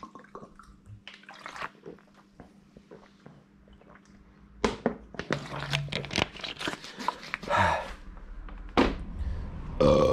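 A thin plastic bottle being handled and its screw cap turned on, giving scattered clicks and crackles that grow louder and busier from about halfway in.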